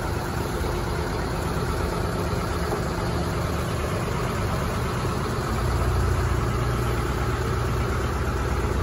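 Riverboat's engine running with a steady low rumble, which grows louder a little past halfway through.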